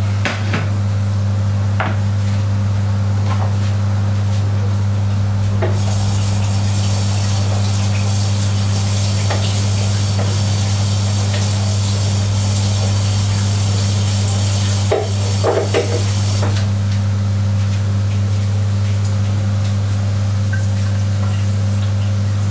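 A loud, steady low electrical hum throughout. A hiss cuts in about six seconds in and stops abruptly around sixteen seconds, with a few light knocks along the way.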